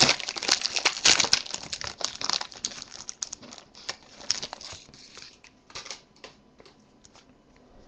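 Foil wrapper of a trading card pack being torn open and crinkled, loudest in the first second or two, then thinning to scattered light crackles and ticks as the cards come out.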